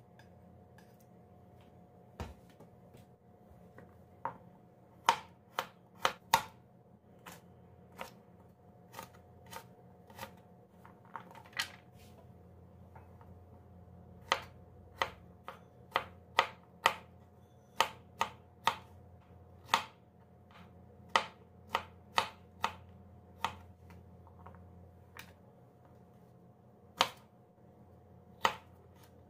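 Kitchen knife cutting vegetables on a plastic cutting board: sharp, irregular knocks as the blade strikes the board, sometimes several a second, with pauses between runs.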